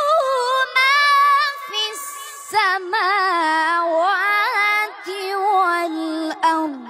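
A boy reciting the Quran in melodic tajwid style. His high voice draws out long held notes with quavering ornaments and slides, and closes the phrase with a falling glide near the end.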